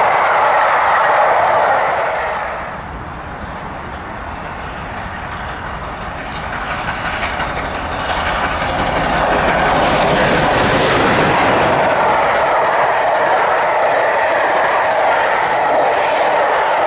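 Coaches of a passing train rolling by at speed, then a quieter stretch as an LNER Gresley A4 streamlined steam locomotive approaches. The sound grows to its loudest about ten to twelve seconds in as the engine rushes past, and its carriages follow with a steady clickety-clack rumble on the rails.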